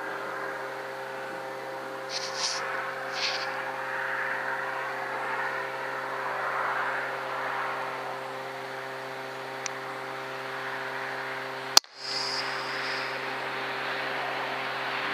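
A steady mechanical hum of several even tones over a hiss. About three-quarters of the way through comes one sharp crack: a shot from an FX Impact PCP air rifle. A short high-pitched sound follows it.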